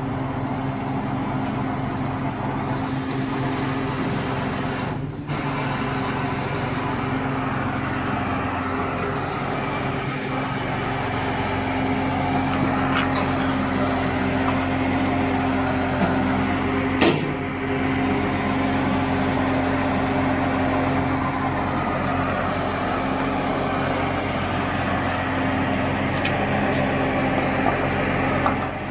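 A heavy vehicle engine running steadily, with a sharp click about five seconds in and a brief crack about seventeen seconds in.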